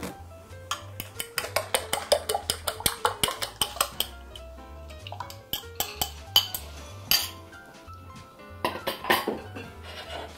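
A metal utensil beating eggs in a small glass bowl: rapid clicking of metal against glass, about six strokes a second for a few seconds, then scattered clinks of bowls and utensils. Background music plays throughout.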